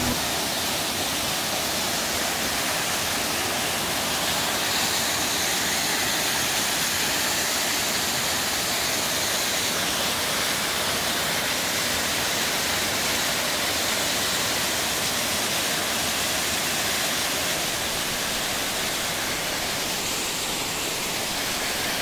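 Waterfall pouring down a steep rock slab: a steady, unbroken rush of falling water.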